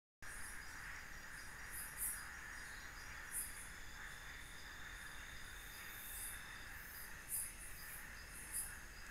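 Night insect chorus of crickets and other insects: a steady high-pitched hum and trilling, with louder, sharper high chirps breaking in irregularly every second or so. It cuts in suddenly just after the start.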